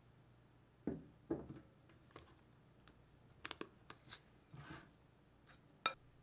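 Quiet handling sounds of buttercream being scooped into a plastic piping bag held open in a tall cup: two soft thuds, a few small clicks and a brief scraping swish of cream and plastic, with a sharper click near the end.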